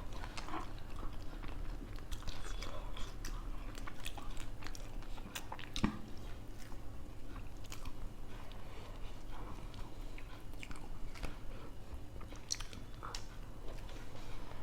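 People chewing and biting food quickly, with scattered small clicks and crunches over a low steady hum.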